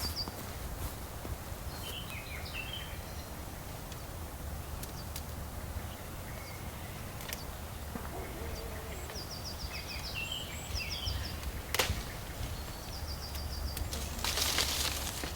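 Small birds chirping in short repeated trills over a steady low rumble, with a sharp click about twelve seconds in and a brief rustle near the end.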